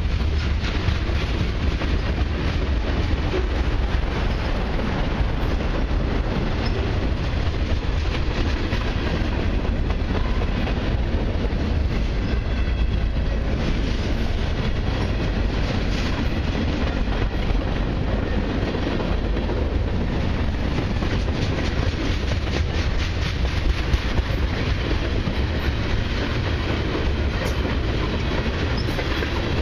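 Freight cars of a long mixed freight train (boxcars, covered hoppers, tank cars) rolling past close by. Their steel wheels make a steady rumble on the rail, with a constant run of rapid clicks as the wheels pass over the track.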